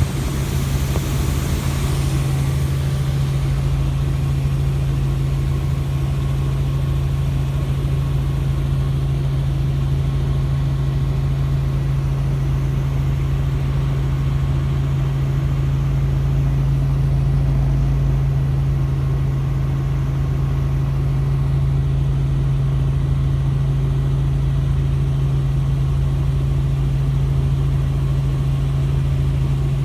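Helicopter running steadily, a constant low engine and rotor hum with no change in pitch or level.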